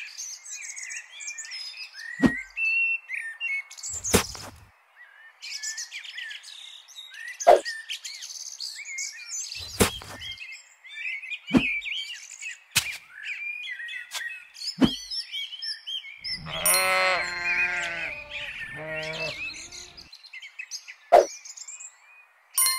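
Songbirds chirping and twittering throughout, over a series of light clicks and taps as small plastic and clay pieces are set down on the model. About two thirds of the way through, a drawn-out animal call comes twice in a row, the loudest sound here.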